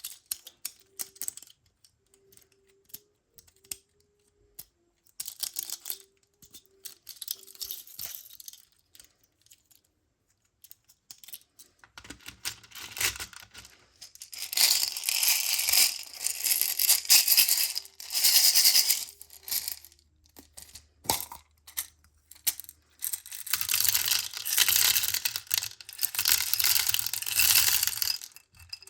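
Beads being poured and shaken, rattling and clicking in several bursts; the longest runs from about twelve to twenty seconds in, with scattered single clicks between.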